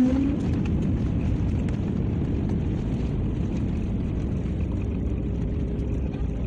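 Airliner landing noise: a steady, loud, deep rumble of the engines and the landing roll.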